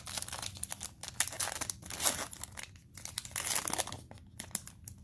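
Cellophane wrapper of a 2020 Panini Mosaic football cello pack being crinkled and torn open by hand, a dense run of crackles that is loudest about two seconds in and again around three and a half seconds.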